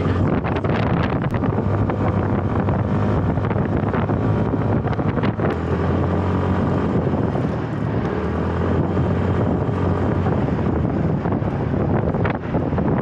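Steady wind rush over the microphone mixed with road-traffic and vehicle noise, as if riding through city streets; a passing engine rises and falls about eight to ten seconds in.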